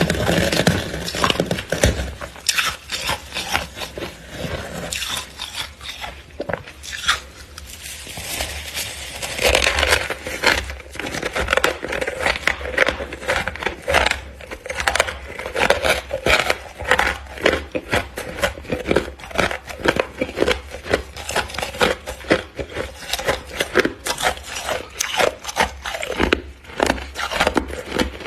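Freezer frost being crunched and scraped: a dense, continuous run of crisp crackling clicks.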